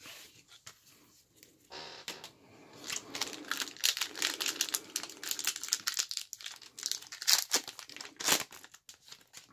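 Foil wrapper of a 1990-91 Skybox Series II basketball card pack crinkling and tearing as gloved hands rip it open, a crackle of many small clicks that grows louder about three seconds in and stops shortly before the end.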